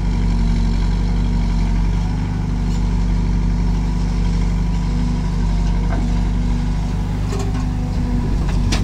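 Diesel engines of a JCB backhoe loader and a tractor running with a steady drone as the backhoe swings a bucket of soil over the trolley. One short knock comes near the end.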